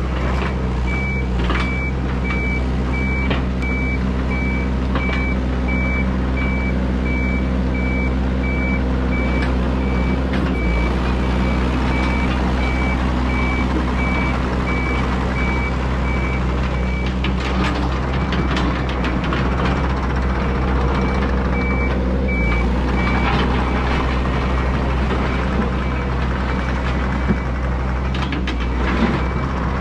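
Yanmar ViO80 excavator's diesel engine running steadily as the machine tracks and works. Its travel alarm beeps evenly from about a second in until a little past halfway, stops, then beeps again briefly later on. A few short knocks come near the end.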